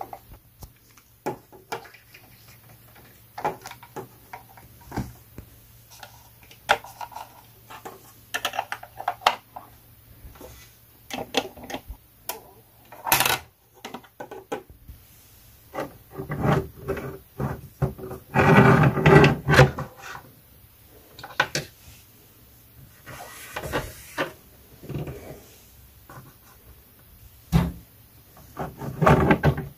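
Plastic toy horse figures, trailer and stable pieces being handled on a tabletop: scattered clicks, taps and rubbing, with one sharp click and, a little later, a louder rustling clatter.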